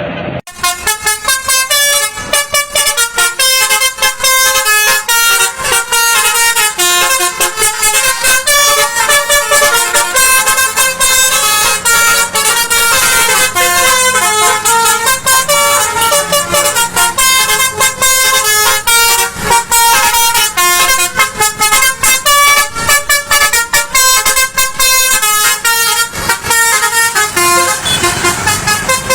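A bus's Basuri multi-tone 'telolet' horn playing a fast tune of stepping notes. It starts abruptly about half a second in and goes on without a pause.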